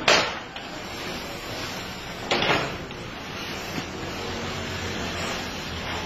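Remote-control toy truck knocking against the wooden pallets it is driving over: two sharp clatters about two seconds apart, the first the louder, over steady background noise.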